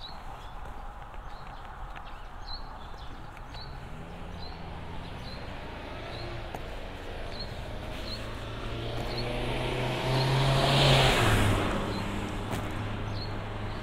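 A car drives past, its engine and tyre noise swelling to a peak about eleven seconds in; the engine note drops in pitch as it goes by, then fades. Regular footsteps tick underneath at a walking pace.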